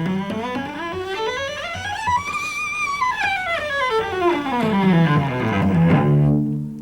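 Cello bowing a three-octave scale, stepping note by note up from a held low note to a held top note about two and a half seconds in, then back down to the low note. The scale is played stressing only its bottom and top notes.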